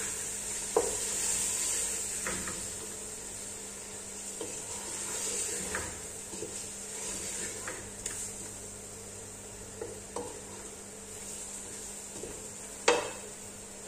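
Chicken pieces sautéing in oil in an aluminium stockpot, with a steady sizzle, while a wooden spoon stirs them and knocks against the pot every few seconds; the loudest knock comes near the end.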